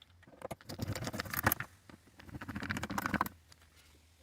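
Handling noise from reassembling the car's interior door trim: two stretches of scraping and rattling, about a second each, with small clicks.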